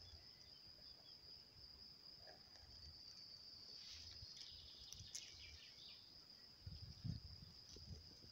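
Meadow insects (crickets) chirring faintly in one steady high tone, with low rumble of wind on the microphone coming and going and a low bump about seven seconds in.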